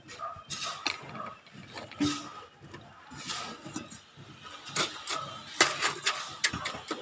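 Irregular metallic clicks and knocks from hand work on a steel-reinforced concrete formwork, heaviest in the second half, over a faint steady high hum.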